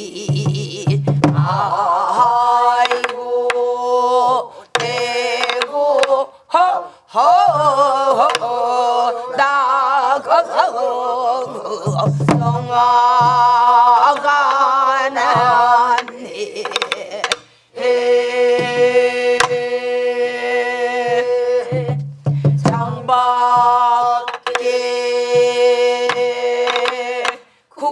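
A group of voices, led by a woman's, singing a Namdo (southwestern Korean) folk song in unison. The held notes are long and wavering, and the singing breaks off between phrases. Sori-buk barrel drums beaten with a stick mark the rhythm with occasional strokes.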